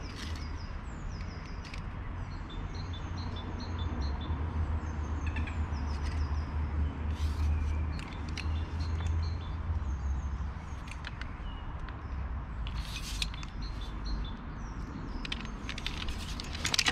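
Small birds chirping in short, repeated phrases over a steady low rumble, with a few sharp clicks about seven and thirteen seconds in.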